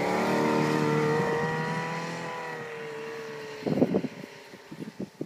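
Yamaha Apex 1000 snowmobile's four-stroke engine running hard as the sled pulls away, fading steadily over about three and a half seconds. Then a cluster of loud crunching noises close by, and scattered clicks.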